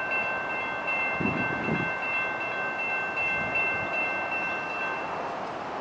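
Railroad grade-crossing warning bell ringing, a steady high metallic ring that stops near the end. Wind buffets the microphone throughout.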